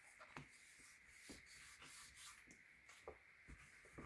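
Faint rubbing and a few light taps of hands pressing a sublimated cover plate down onto the adhesive on a snack container lid.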